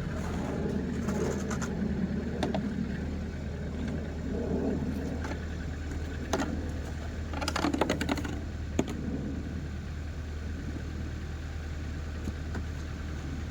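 A car engine idling steadily under irregular scraping and sharp clicks from snow and ice being cleared off the car, with a quick run of clicks about seven to eight seconds in.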